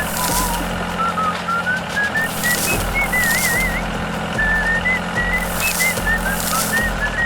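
Background music: a whistled-sounding melody of short hopping notes, some with a wavering vibrato, over a steady low hum, with pairs of hissy shaker-like strokes every few seconds.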